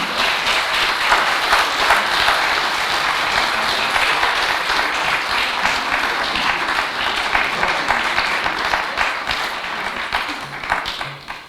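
Audience applauding: a dense, steady patter of hand claps that dies away near the end.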